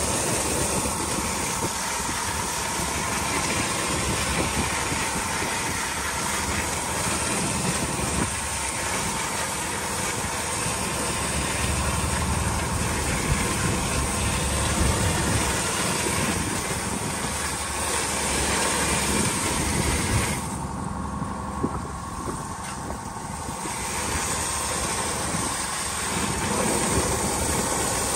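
A sponge-fishing boat's engine running steadily under way, a low rumble with a faint steady tone above it and an even hiss over the top. About three quarters of the way in, the hiss drops away for a few seconds.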